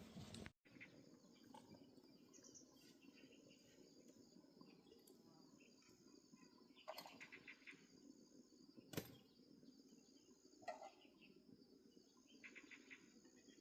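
Near silence: faint outdoor ambience with a steady high insect-like drone, a few short chirps and soft clicks.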